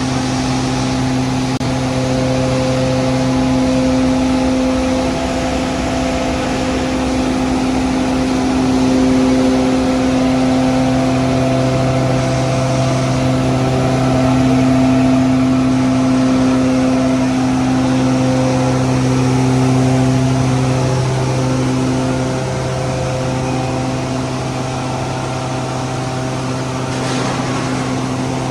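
Feed grinder machine running steadily: a constant low tone from its drive under a loud, even grinding noise.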